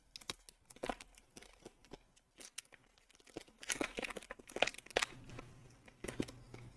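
Faint crinkling and clicking of a small plastic wax container and its packaging being handled and opened, with a denser patch of crackling in the middle.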